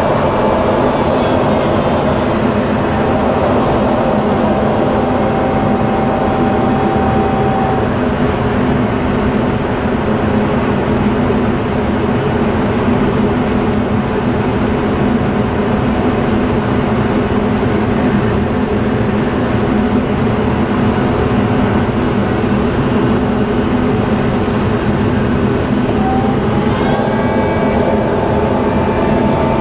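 Steady roar of an F-16 fighter's jet engine heard from inside the cockpit during display flying. A high whine over it drops in pitch about eight seconds in and climbs again near the end, while a lower tone fades in and out.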